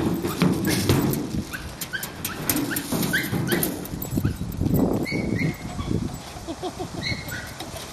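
Kai Ken dog giving short, high-pitched whines and yips again and again while running about, over the loud scuffing and thumping of movement close to the microphone.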